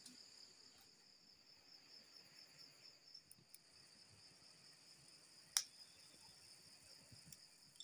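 Faint, steady, high-pitched insect chirring, with one sharp click about five and a half seconds in.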